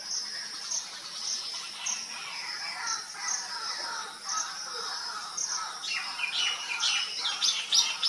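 Forest birds calling over a steady high-pitched insect drone that pulses about once or twice a second. Near the end a bird gives a quick run of sharp, repeated notes.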